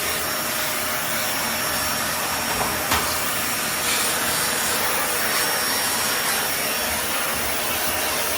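Vacuum cleaner running steadily with a faint high whine over its rushing air, sucking up lint and dust around the dryer.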